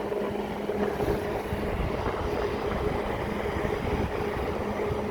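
Nissan electric radiator cooling fan running with a steady motor hum and rushing air, held below full speed by a 10-amp charger supply. About a second in the hum shifts and the air rumble grows as a second ground is connected, bringing the fan up to medium speed.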